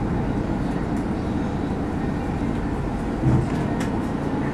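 Steady low rumble of a Mercedes-Benz OC500LE city bus's diesel engine and running gear, heard from inside the passenger cabin, with a brief thump a little over three seconds in.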